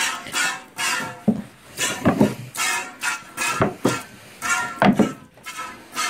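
Hand-milking a Dexter cow: alternating squirts of milk hitting the pail, about two a second, each squirt ringing briefly in the pail, with a few heavier thuds among them.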